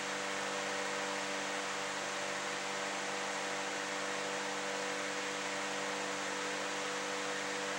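Steady hiss with a constant low electrical hum, unchanging throughout: the room tone of a quiet, still room picked up by the camera's microphone, with no distinct events.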